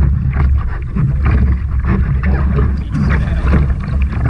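Wind buffeting the microphone of a camera mounted on a sit-on-top surf kayak, a heavy steady rumble, with sea water sloshing and splashing around the hull and paddle blades in short irregular bursts.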